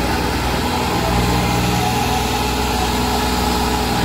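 Massey Ferguson 7250 DI tractor's diesel engine running steadily at an even pitch as it pulls a trolley loaded with soil through loose earth, where it has got stuck.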